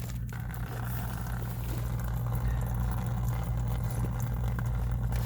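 Water running out of a waterlogged HVAC supply trunk line, a steady noisy pour that builds after the first second or so, over a constant low hum.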